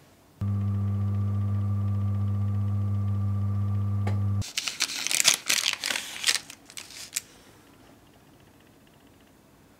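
Oven running with a steady electrical hum that starts suddenly and cuts off sharply after about four seconds. Irregular clattering and rustling follow for about three seconds.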